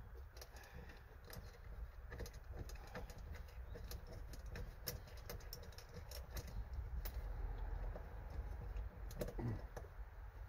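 Scattered light clicks and taps, likely hand tools working on the seat-belt mounting bolts, over a low steady rumble. A pigeon coos once near the end.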